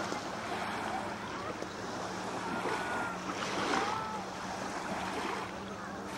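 Lake water lapping gently, with wind rushing on the microphone.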